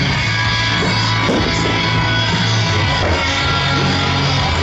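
Rock music playing loudly, with a steady bass line.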